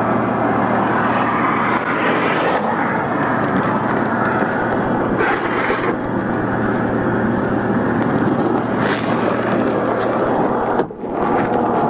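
Loud, steady roar of a vehicle driving at high speed, engine and wind noise mixed, with a brief break a little before the end.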